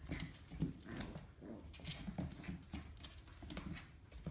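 Dogs' claws clicking and scrabbling irregularly on a hard tiled floor as a puppy and an adult dog tussle over a plush toy.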